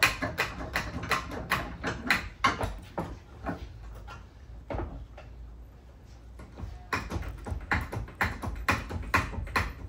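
Background music with a fast, steady beat that goes quieter for a few seconds in the middle, then picks up again.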